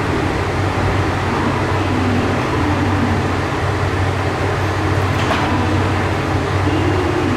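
Diesel railcar of the Kanto Railway Joso Line, its engine running with a steady low hum.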